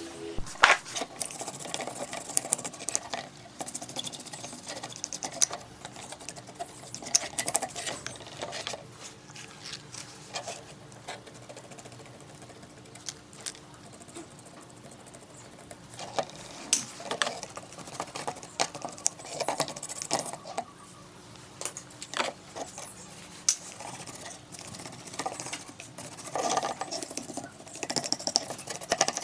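Irregular clicks, taps and light rattles of small hard parts being handled, in clusters with a quieter stretch around the middle.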